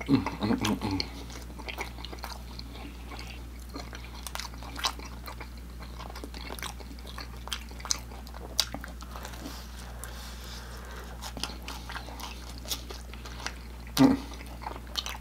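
A person biting and chewing pepperoni pan pizza close to the microphone, with wet mouth clicks and smacks scattered throughout. There is a short hum of the voice just after the start and another near the end.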